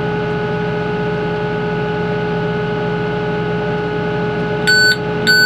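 Kubota M6-141 tractor's diesel engine running steadily with the baler hooked up. Near the end a high warning beep starts repeating, about twice a second, signalling that the baler's door has been open too long.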